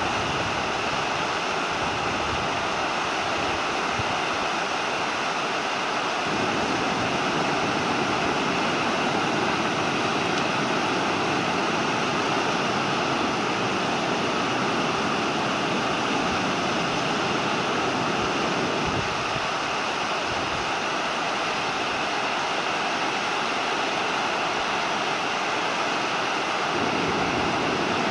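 River water pouring over a low weir and churning into white water below it: a steady, even rushing.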